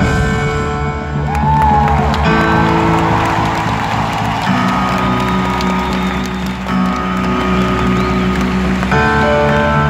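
Live concert music heard from the audience: sustained chords that change every two seconds or so, with the crowd cheering and a short whistle in the first few seconds.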